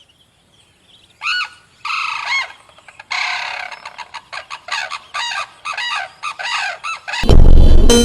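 Bird calling: two drawn-out, arching calls, then a fast run of short repeated calls, much like a fowl's cackle.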